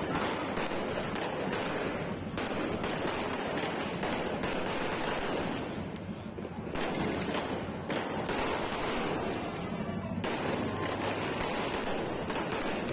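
Fireworks going off in a dense, continuous barrage of many overlapping pops and crackles that blend into a steady rushing noise, easing briefly about six seconds in.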